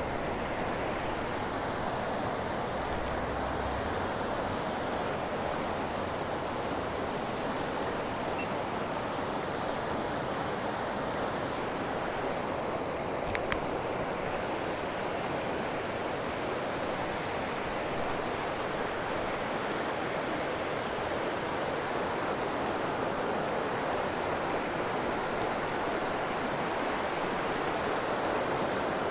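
Steady rush of a fast mountain creek running over rocks and riffles, with one sharp click about halfway through and two brief high-pitched sounds shortly after.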